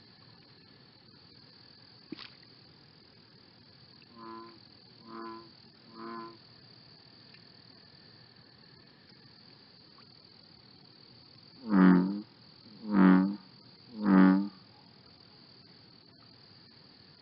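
A sound effect of pitched tones: three soft tones about a second apart, then three much louder, lower tones at the same spacing, each fading out within about half a second, over a steady high-pitched hiss.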